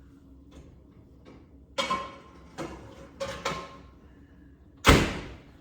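A metal frying pan being handled, with several ringing clanks and one much louder clank near the end.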